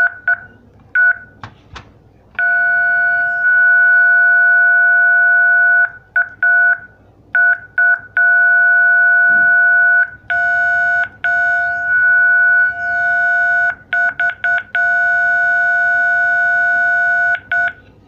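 Homemade e-bike horn made from an old telephone's circuit board, sounding a steady electronic beep through a loudspeaker. The beep comes on and cuts off as its push switch is pressed and released: some quick blips, several blasts of a few seconds each, and a fast run of short taps about three-quarters of the way in.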